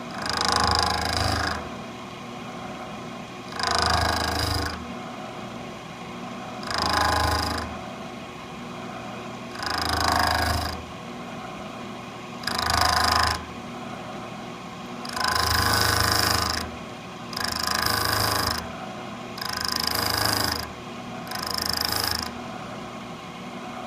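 Milling machine running steadily, its cutter biting into a hardened valve seat in a cast-iron bulldozer cylinder casting in nine loud bursts about every three seconds. Each burst is a second or so of harsh cutting noise as the seat is milled out.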